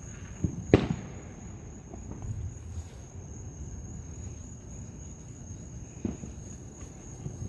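Steady high-pitched insect chirring, typical of crickets, over a low background rumble, with a sharp crack a little under a second in and a fainter one near the end.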